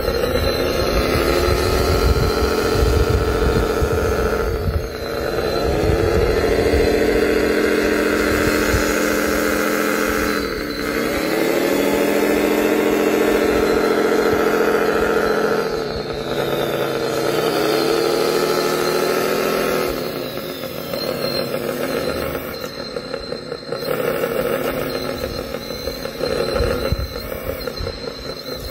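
Radio-controlled wheel loader working a load of sand: a motor whine rises quickly to a steady pitch, holds for several seconds and drops away, four times over, with a rougher, less even running sound in the last third.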